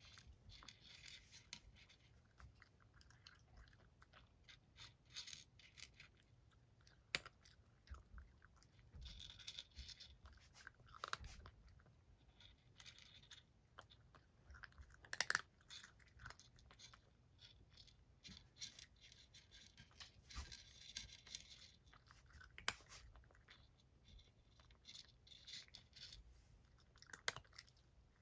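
A domestic cat crunching dry kibble: faint bouts of crisp chewing every second or two, with a few sharp clicks of kibble against the dish.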